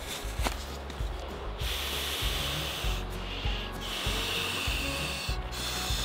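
An inflatable camping pillow being blown up by mouth: a few long breaths of air rushing into the valve, with short breaks between them. Light handling rustle before the blowing starts.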